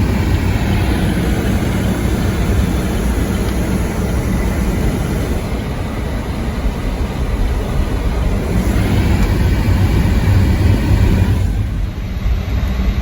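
Car driving on a snowy road, heard from inside the cabin: a steady low rumble of engine and tyres.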